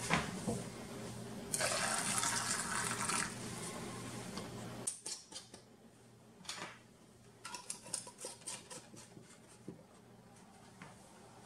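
Pickling brine poured through a funnel into a glass canning jar, a rushing gush of liquid lasting about two seconds. After a cut, light clicks and taps of metal snap lids and screw rings being set and turned on the glass jars.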